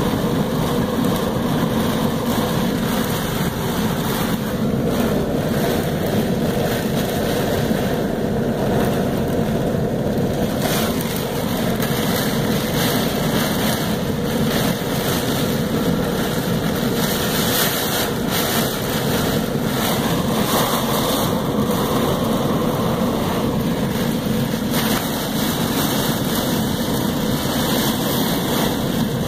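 Heavy thunderstorm downpour driven by gusting wind, a loud, steady wash of rain heard from behind a window.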